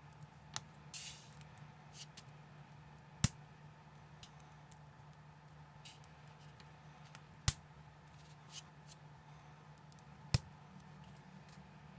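Small plastic LEGO-compatible bricks handled and pressed together, with sharp clicks as pieces snap into place, the three loudest about three, seven and a half and ten seconds in. Lighter taps and a short rustle come between, over a faint steady hum.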